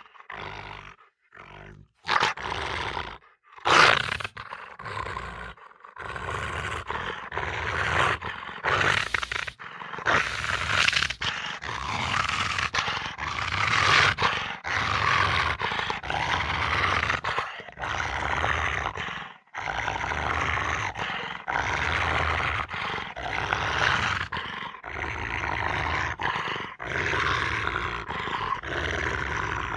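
Roaring and growling animal sound effects spliced one after another. Short separate bursts come in the first few seconds, then an almost unbroken run with abrupt cuts.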